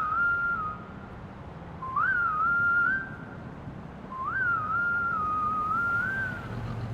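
Whistled melody in three short, repeating phrases, the whistled hook that opens a K-pop track.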